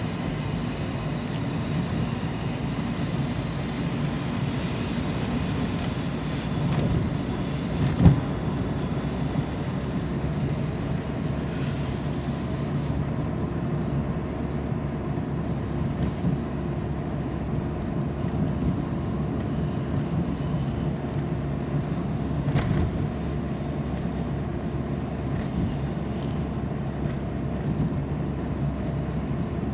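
Cabin sound of a 1994 Toyota Camry's 2.2-litre four-cylinder engine and tyres while driving, a steady low hum. A sharp thump comes about eight seconds in, and a lighter one later.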